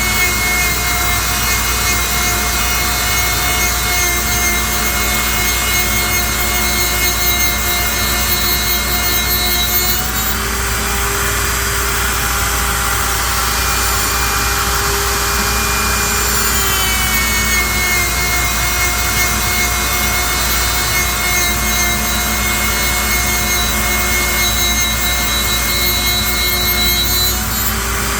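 CNC lathe turning a square curly maple blank into a round butt sleeve: the tool cutting the spinning wood with a hissing scrape over a steady machine whine. The whine shifts pitch a few times as the machine changes speed.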